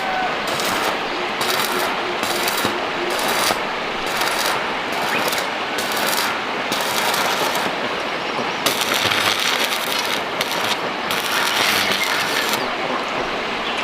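Electric arc welding on an iron frame: a loud, dense crackle that starts and stops in short bursts of about half a second, with one longer run of a couple of seconds in the middle.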